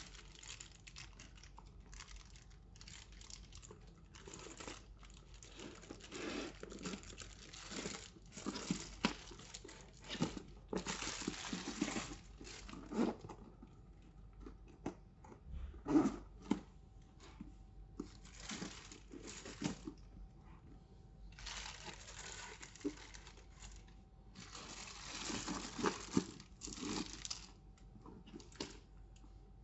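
Packaging material crinkling and rustling in irregular bursts as a handbag is unwrapped, with a few sharp clicks.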